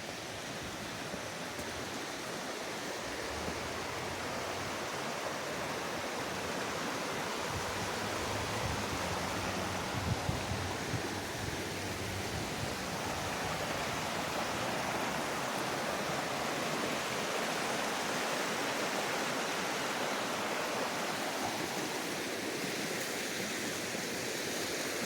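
Steady rushing of flowing stream water, even and unbroken, with a few light knocks about ten seconds in.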